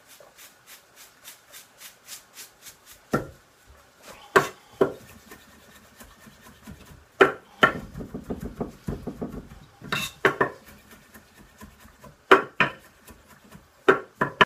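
A chef's knife chopping parsley and onion on a wooden cutting board. It starts as a run of quick light taps, about three a second, then gives way to heavier, irregular knocks of the blade on the board.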